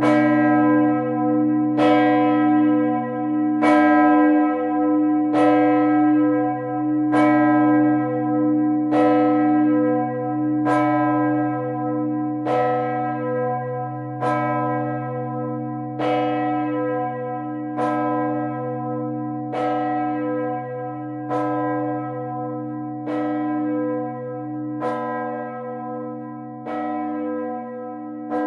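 A single large church bell swinging and ringing solo, its clapper striking about once every 1.8 seconds. Each stroke's ring carries on under the next over a steady low hum, and the strokes grow a little softer toward the end.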